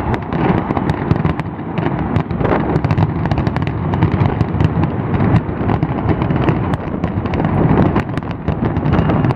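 Fireworks display: a dense, continuous barrage of booms with many sharp crackling pops on top.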